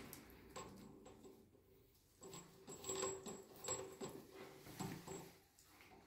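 Faint handling sounds of hands fitting a chrome angle valve onto a water pipe outlet: irregular light scrapes and small metallic clicks, starting about two seconds in and running for a few seconds.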